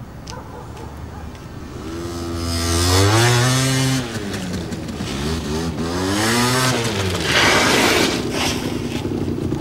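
A motor vehicle engine revs up and drops back twice, then runs steadily near the end.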